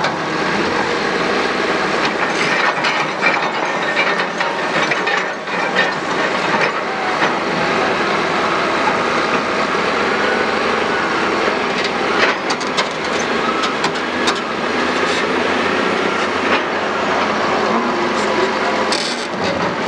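Heavy diesel quarry machinery running steadily, with scattered clanks and knocks through it.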